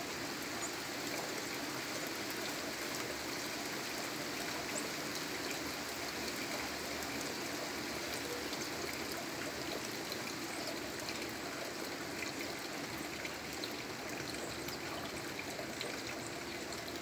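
Steady rain falling with runoff water running across the ground in a continuous hiss.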